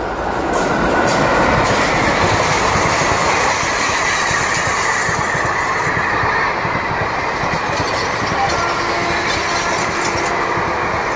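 Electric-hauled express passenger train passing at speed close by: a loud, steady rush of wheels on rails and coaches going past. It swells over the first second as the locomotive arrives.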